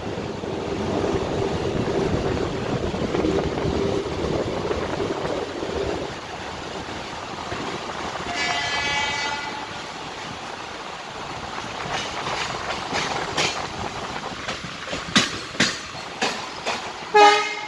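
Mumbai suburban local train running, heard from aboard, with steady rolling noise. About eight seconds in a train horn sounds for about a second. In the last few seconds the wheels clack over rail joints and points, the loudest clack near the end.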